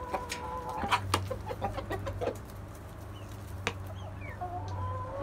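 Chickens calling and pecking at feed scattered on bare dirt: a drawn-out call at the start and another near the end, with sharp pecking taps in between.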